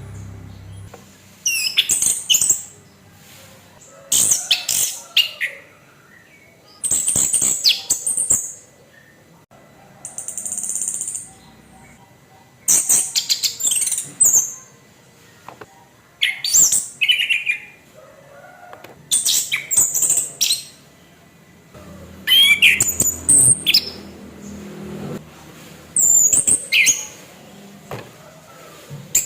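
Orange-headed thrush (anis kembang) singing a series of short, high, varied song phrases, one every two to three seconds.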